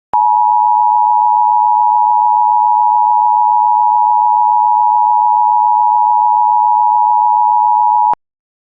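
Emergency Alert System two-tone attention signal: a loud, steady dual tone that starts suddenly, holds for about eight seconds and cuts off abruptly. It signals that an emergency alert message is about to follow.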